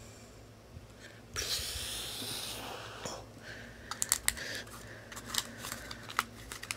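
Small hard plastic toy pieces clicking and tapping against a clear plastic display stand as they are handled and set down, with a soft rustle in the first half and a quick run of sharp clicks through the second half.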